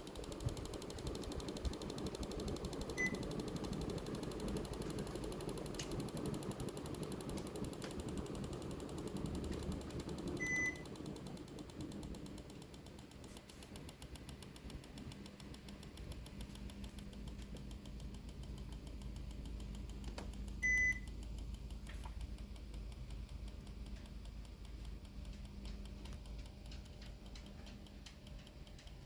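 Hitachi Shirokuma-kun room air conditioner indoor unit running, its fan making a rapid mechanical ticking and rattling that the owner takes for the fan hitting something inside. Three short electronic beeps sound from the unit, about 3, 10 and 21 seconds in, and the running noise gets quieter after the second beep.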